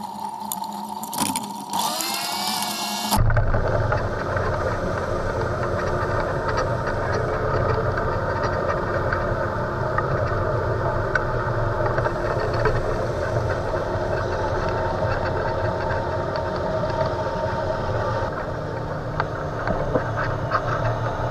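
Watercraft engine running steadily, coming in suddenly about three seconds in.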